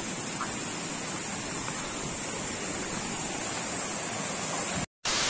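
Steady rushing noise of a waterfall. Near the end it cuts off suddenly and a short, loud burst of hiss follows.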